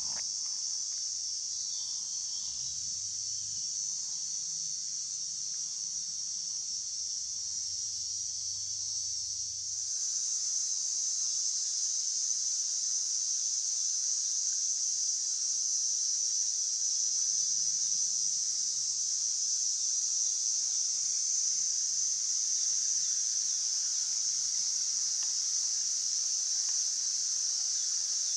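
A dense chorus of insects droning as one steady, high-pitched hiss-like sound, a little louder after about ten seconds.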